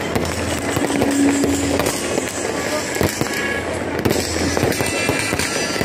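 Aerial fireworks bursting close overhead: a continuous run of bangs and crackles, many shells going off one after another with no pause.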